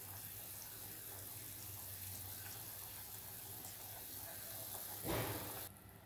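Pot of soup simmering on the stove: a steady bubbling hiss over a faint low hum. About five seconds in there is a short, louder rush, and then the hiss cuts off suddenly.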